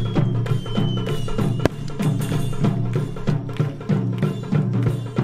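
Music with a steady percussive beat. Over it, a thin falling whistle ends in one sharp crack about a second and a half in.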